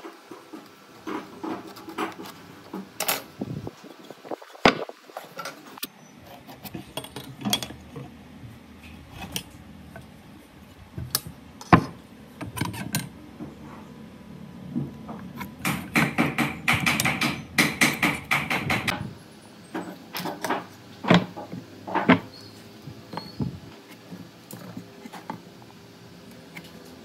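Woodworking hand-tool work on wood: irregular sharp knocks and taps, with a few seconds of quick repeated strokes a little past the middle.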